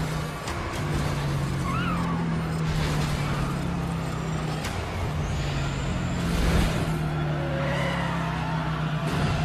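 Movie sound effects of a multi-car highway crash: cars crashing and tumbling with sharp metal impacts and short tyre squeals, over a steady low hum.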